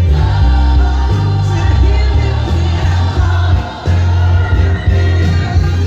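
A gospel record with a choir singing over a heavy bass line, played on a turntable and heard through floor-standing loudspeakers in the room.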